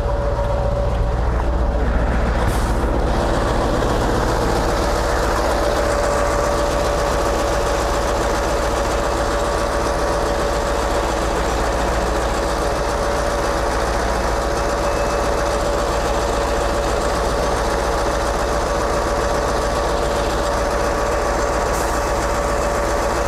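Scania 143M truck's V8 diesel running steadily while it drives the loader crane's hydraulics, with a steady whine over the low engine rumble.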